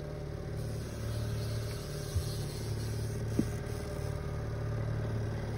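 Boat's outboard motor running steadily at trolling speed, a low even hum with water washing behind the stern. Two small knocks, about two and three and a half seconds in.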